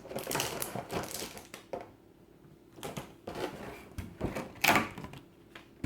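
Trading card collection box being unpacked by hand: irregular clicks, taps and rustles of cardboard and card, with a short pause about two seconds in and a sharper, louder rustle near the end.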